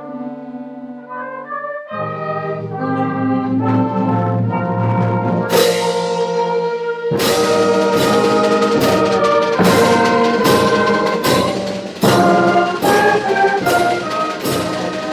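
Orchestral music led by brass: held brass chords that swell, then from about halfway repeated percussion strikes, roughly one a second, under the sustained brass.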